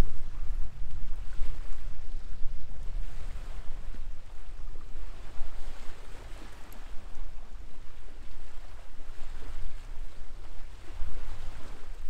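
Wind buffeting the microphone: an uneven low rumble over a steady rushing noise.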